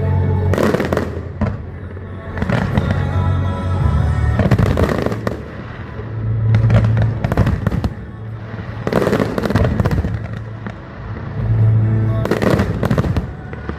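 Aerial fireworks bursting and crackling in several volleys, over loud music with a pulsing deep bass.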